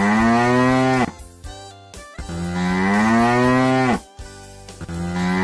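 Cow mooing: long, drawn-out moos, each dipping in pitch as it ends. One finishes about a second in, a second runs from about two to four seconds in, and a third begins near the end.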